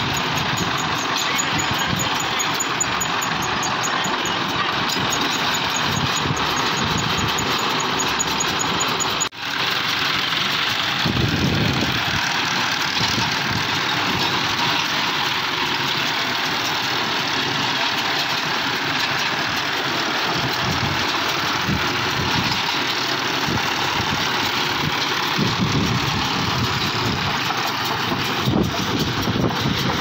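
Tractor engine running steadily while driving a Bharat Baler round baler through its PTO, the baler's pickup and chains working as it gathers loose fibre. The noise is steady and dense, with a brief break about nine seconds in.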